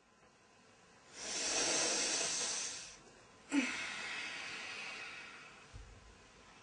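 A person takes a deep breath in, then lets it out in a long exhaling sigh that starts with a brief voiced catch and fades away.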